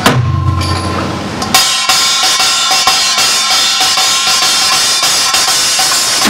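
A strike with a deep, steady low ring, then about one and a half seconds in a kkwaenggwari (small hand-held brass gong) takes over, struck rapidly with a mallet in a bright, dense metallic rhythm.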